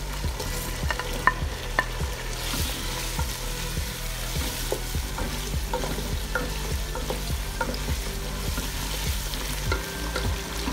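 Fried chicken pieces going into a pot of sizzling tomato-onion masala sauce, then a wooden spoon stirring the sauce, with frequent short knocks of the spoon against the pot.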